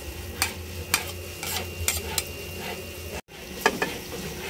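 Cream sauce simmering in a pan, bubbling and sizzling with scattered sharp pops and ticks. The sound drops out for a moment about three seconds in.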